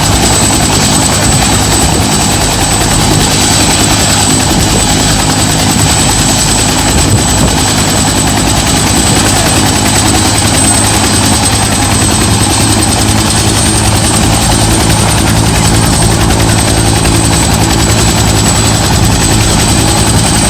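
Bell 212 helicopter running, its Pratt & Whitney Canada PT6T twin turboshaft giving a steady high turbine whine over the rapid beat of the two-blade main rotor.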